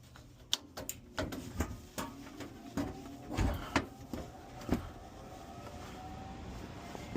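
A run of irregular sharp clicks and knocks, as of hands working on the furnace and handling a meter, then a faint steady tone that rises slightly in pitch over the last couple of seconds.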